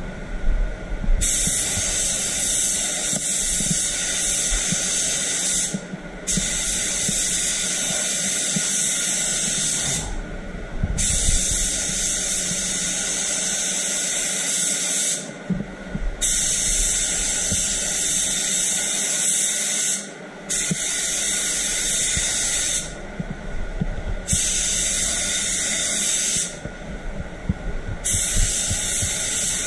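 DeVilbiss GTi Pro Lite HVLP spray gun hissing as it sprays white direct-gloss paint. It goes in about seven trigger pulls of two to five seconds each, with short breaks between passes.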